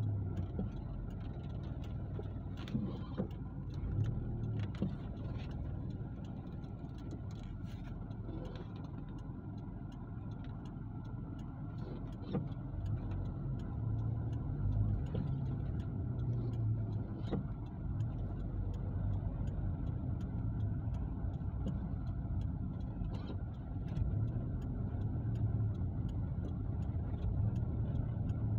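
Car engine and tyre noise heard from inside the cabin while driving slowly: a steady low rumble with a few faint clicks.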